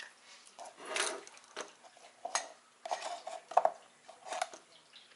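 Kitchen things handled on a countertop, a plastic milk jug and measuring cup among them: about six short knocks and clatters spread over a few seconds.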